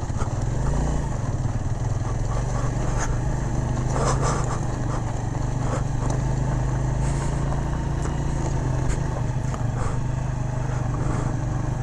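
Motorcycle engine running with a steady note while riding a slippery, rocky mountain track, with a few short knocks from the rough ground.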